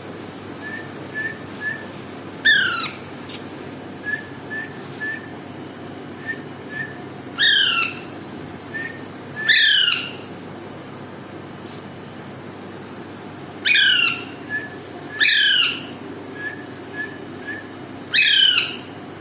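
Alexandrine parakeet giving six loud, harsh screeches of about half a second each, spaced a few seconds apart, with short soft whistled chirps in runs of three between them. The owner takes the parrot to be angry.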